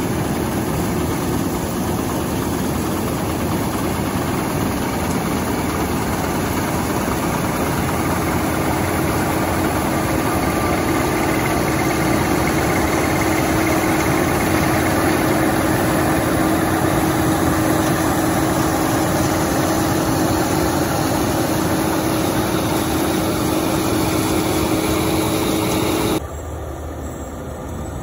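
Gleaner combine harvester running steadily under load while cutting and threshing soybeans: a dense, even machine drone with a steady hum. About 26 seconds in it drops abruptly to a quieter level.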